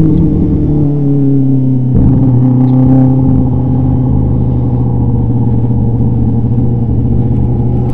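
The Kawasaki ZX-10R inline-four motorcycle engine of a Formula 1000 race car running at low, steady revs as the car rolls slowly in first gear, heard from the cockpit. The note grows rougher in the low end about two seconds in.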